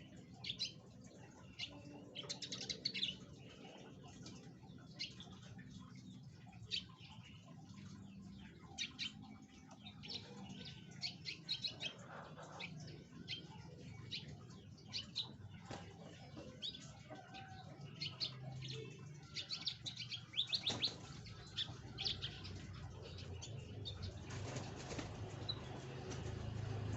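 Domestic canaries chirping and twittering in short, scattered phrases of high notes, over a low steady hum.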